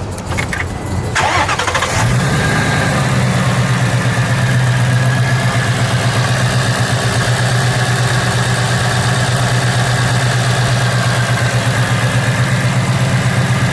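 The supercharged 5.0-litre V8 of a 2017 Roush Stage 3 Ford Mustang is started: a brief crank about a second in, then it catches at about two seconds and settles into a steady idle.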